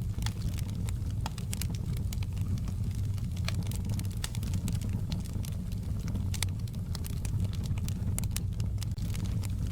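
Crackling wood fire in a fireplace: a steady low rumble of flames with frequent, irregular sharp pops and crackles.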